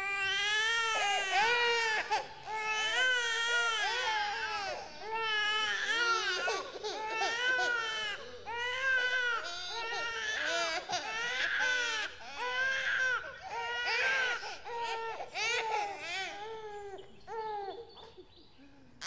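A baby crying: wailing cries one after another, fading off near the end.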